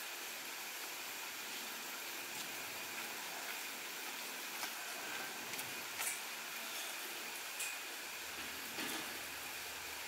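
Steady faint hiss with a few scattered light clicks or taps.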